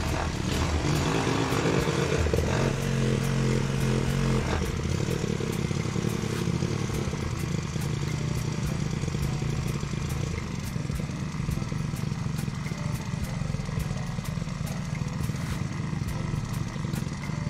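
Honda GC160 single-cylinder four-stroke engine running steadily, its hand throttle lever being worked. The engine note changes about four seconds in, then settles to a steady run.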